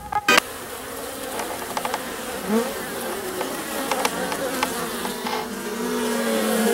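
Honey bees buzzing as they fly in and out of their colony's nest hole in a hollow tree, growing louder near the end.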